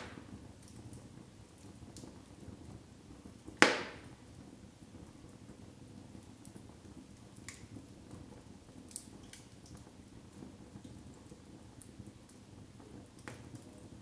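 Split logs burning in an open fireplace: a low steady rustle of flame with scattered small crackles and one loud, sharp pop of the burning wood about four seconds in.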